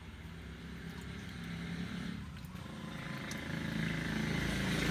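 A motor vehicle's engine running, growing steadily louder.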